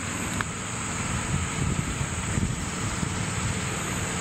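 Engine of a small narrow-gauge rail locomotive running with a low, uneven rumble as it rolls slowly toward the listener along the track.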